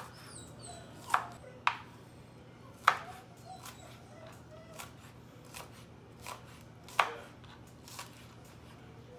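Kitchen knife slicing green onions on a wooden cutting board: sharp taps of the blade on the board at an uneven pace of about one a second.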